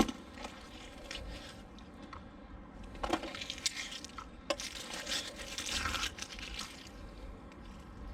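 Scattered handling noise, rustling and scraping, with sharp knocks about three and about four and a half seconds in, and a faint trickle of water.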